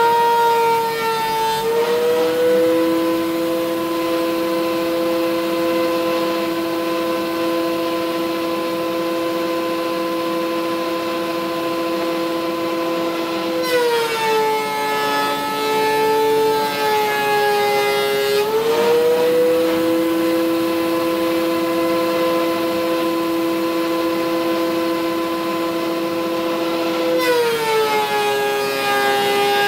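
High-speed electric woodworking tool motor, such as a router, whining steadily. Its pitch sags and a rougher cutting hiss comes in twice, about halfway through and again near the end, as the bit or cutter is loaded by the oak, then the whine climbs back when it runs free.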